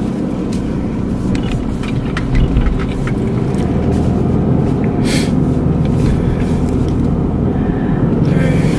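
Car interior noise while driving: a steady low rumble of engine and road, with a few small clicks and a short hiss about five seconds in.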